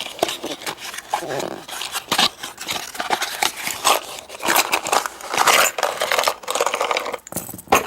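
Packaging being opened by hand: a busy run of irregular rustling, crinkling and tearing noises with sharp clicks.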